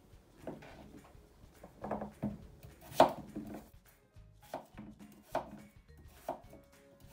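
Chef's knife slicing through peeled raw potatoes, each cut ending in a knock of the blade on a plastic cutting board: about eight separate cuts at an uneven pace, the loudest about three seconds in. Faint background music is also present.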